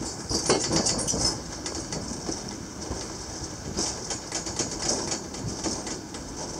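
Gelmerbahn funicular car running down its steep rail track, rumbling and creaking on the rails. Clusters of rapid high-pitched squeaks come about half a second in and again from about four seconds in.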